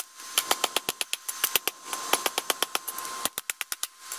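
Hand hammer forging a hot bar of 5160 high-carbon steel on a railroad-track anvil: quick, even blows, about six a second, with short pauses, as the tip of a knife blade is drawn out.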